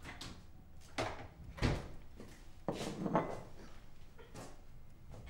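A few knocks and sliding scrapes of household things being handled, four in all. The loudest is a heavy knock a little under two seconds in, and a longer scrape ending in a sharp knock follows about a second later.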